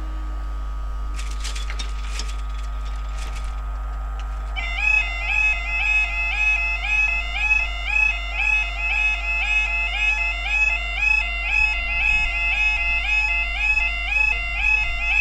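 Railway level-crossing audible warning alarm sounding as the barriers begin to lower. It starts about four and a half seconds in and is a loud electronic warble that repeats about twice a second.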